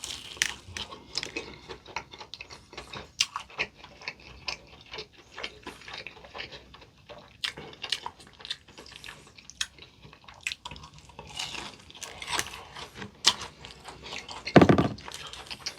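Close-miked biting and chewing of crispy potato-coated fried chicken dressed with potato mayo sauce: irregular crisp crunches mixed with wet mouth sounds. A brief louder sound comes near the end.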